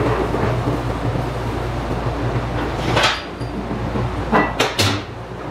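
Metal hand tools clanking as they are picked up and handled at a workbench: one sharp clank about three seconds in and three more in quick succession near the end, over a steady low hum.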